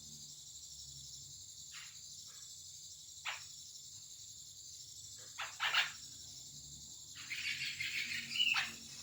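Cucak jenggot (grey-cheeked bulbul) calling: a few short, sharp downslurred notes a second or two apart, then a longer, busier run of calls near the end.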